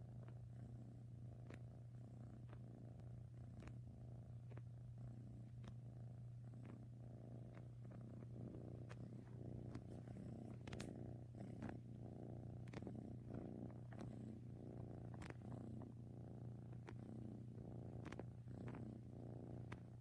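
Seal-point cat purring steadily close up, with faint scattered clicks over the purr.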